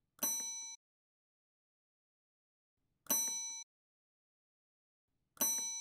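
Three rings of a desk bell (hotel reception bell) sound effect, about three seconds and then two seconds apart. Each ding sustains for about half a second and then cuts off sharply.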